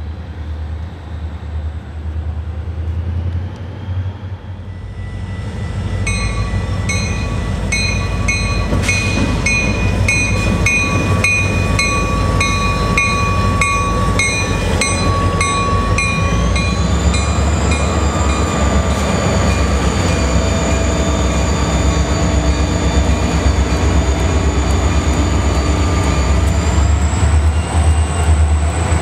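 Rocky Mountaineer passenger train led by EMD GP40-2W and GP40-2 diesel locomotives, with a low diesel rumble as it approaches. About six seconds in it grows louder as it passes and a high-pitched metallic wheel squeal joins. The squeal rises in pitch partway through and then holds steady.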